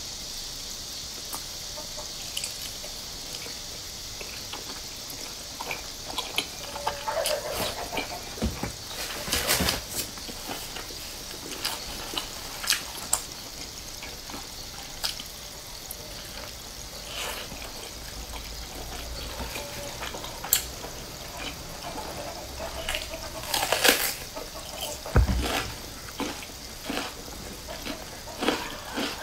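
Close-miked wet chewing and mouth smacking of a pan-fried bun stuffed with glass noodles. It comes as many short sharp clicks over a steady hiss, with a few louder bursts.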